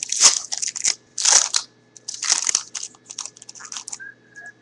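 The wrapper of a 2011 Panini Gridiron Gear football card pack is torn open by hand. It crinkles and tears in three loud crackling bursts about a second apart, then lighter crackles as it is peeled away.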